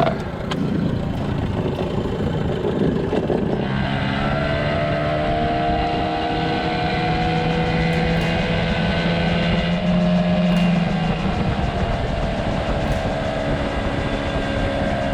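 Boat's outboard motor running as the boat travels, with wind and water noise. About three and a half seconds in, the engine settles into a steady drone.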